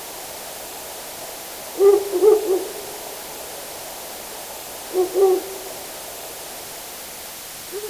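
Owl hooting in short multi-note phrases, two phrases about three seconds apart and a brief note near the end, over a steady hiss of forest ambience.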